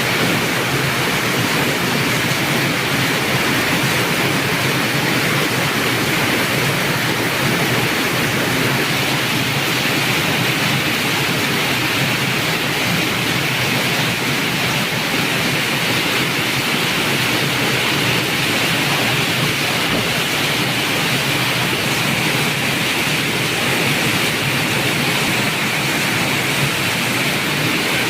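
Very heavy rain falling in a steady downpour.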